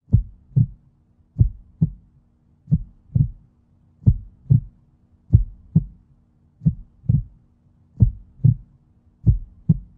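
Slow heartbeat sound effect: eight paired low thumps, one double beat about every 1.3 seconds, over a faint steady low hum.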